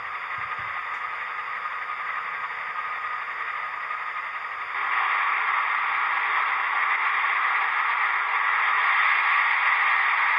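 Sound-chip recording of the Prototype Deltic's Napier Deltic diesel engines idling, played through the model locomotive's small speaker. It is a steady, pitchless rush that gets louder about five seconds in and holds at the higher level.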